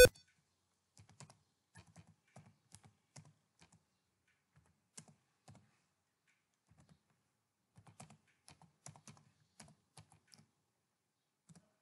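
Faint, irregular keystrokes on a computer keyboard as an email address is typed, with a lull of a few seconds midway before the typing picks up again.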